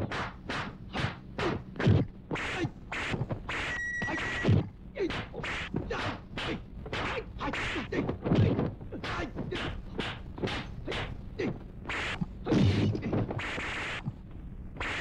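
Rapid kung fu fight sound effects: punch and kick impacts landing about two or three times a second, mixed with swishes of movement. A brief high steady tone sounds about four seconds in.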